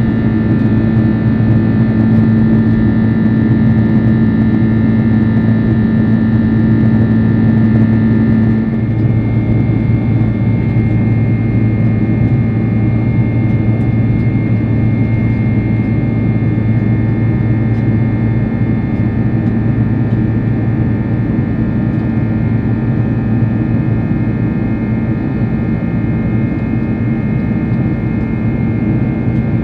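Boeing 767-300 jet engine and airflow noise as heard inside the cabin: a steady loud rumble and hiss with constant humming tones. About eight seconds in, the tones change abruptly.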